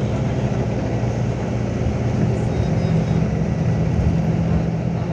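A road vehicle's engine and tyre noise while driving at a steady speed, heard from inside the vehicle: a constant low drone.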